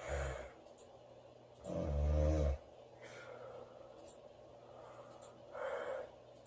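A woman snoring loudly in her sleep. There is a short low snort right at the start, then a long, loud, low-pitched snore about two seconds in lasting nearly a second, and a softer breathy exhale near the end.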